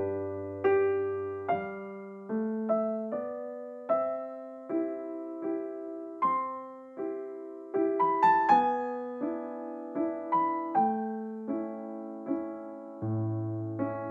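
Background piano music: an unhurried melody of single notes, struck a little under once a second, each one dying away.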